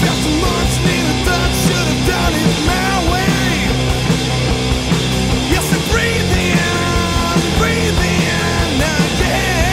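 Stoner rock song with distorted guitars, bass and drums, and a melody line that bends and slides in pitch over a dense, steady low end.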